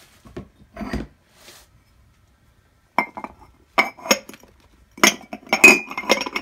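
Ceramic mugs and a milk jug clinking against each other and being set down on a hard surface: a couple of soft knocks, then from about halfway a quick run of sharp clinks with a brief ring.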